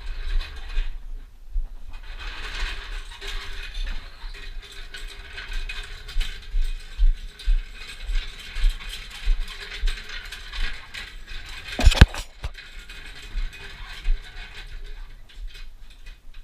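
Metal ratcheting clicks from car-lifting gear being worked, coming in quick runs, with one loud metallic clank about twelve seconds in.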